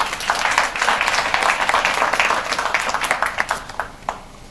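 Audience applauding: a dense patter of many hands clapping that thins out and stops about four seconds in.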